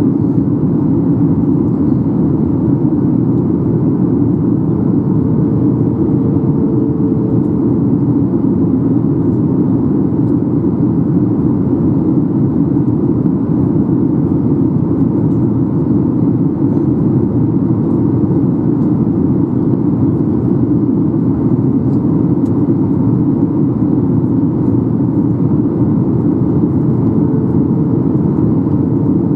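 Steady cabin roar inside a Boeing 737-800 in flight: airflow over the fuselage and the CFM56-7B engines running, with a faint steady hum on top.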